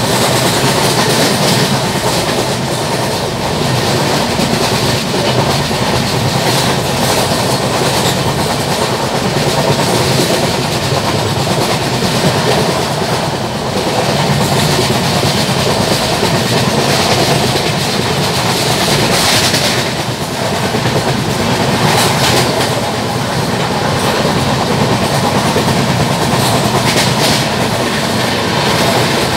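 LHB passenger coach running at speed, heard through its open door: a steady rush and rumble of wheels on rail with clickety-clack over rail joints and the repeated beat of flat wheels.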